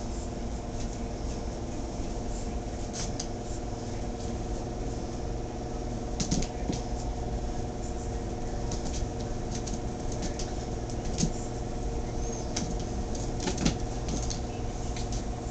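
Scattered light taps and scrapes of cats' paws and claws on a tile floor as they chase a laser dot, a few sharper ones about six seconds in and near the end, over a steady low hum.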